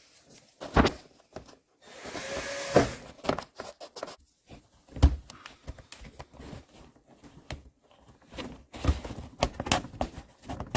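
Scattered sharp knocks and clicks of hands handling car trim parts and fasteners, the loudest about halfway through, with about a second of rushing hiss near the start.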